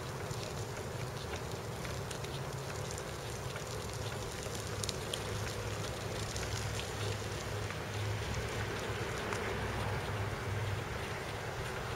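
Steady rumble and hiss of a moving bicycle ride: wind on the microphone and tyres on asphalt, with scattered light clicks and rattles.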